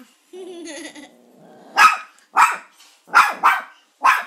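Small Maltipoo dog barking, five short sharp barks in the second half, two of them in quick succession.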